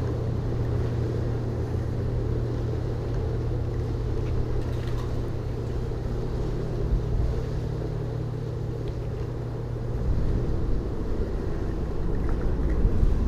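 Steady low engine rumble that swells louder about ten seconds in.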